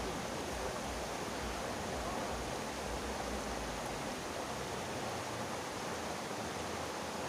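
Steady rushing of river water, with a low rumble underneath that drops away about five seconds in.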